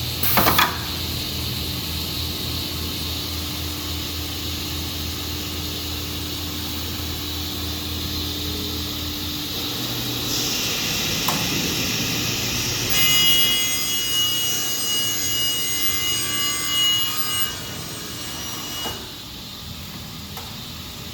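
Vertical band saw running, with a short knock at the start and a steady motor hum. About halfway in the blade begins cutting a workpiece, adding a hiss and then a high-pitched ringing squeal that stops shortly before the end.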